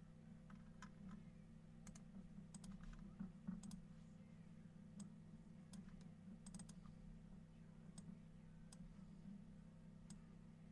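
Faint, scattered clicks of a computer mouse and keyboard, a dozen or so spaced irregularly, over a steady low hum: copying and pasting randomized lists on a computer.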